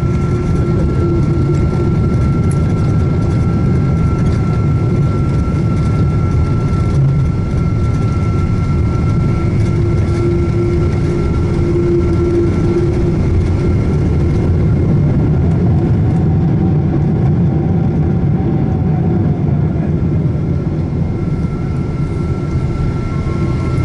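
Steady jet-engine and airflow noise heard from inside the cabin of a Boeing 777-200ER, a low rumble with a thin steady whine over it. The high hiss drops away about halfway through.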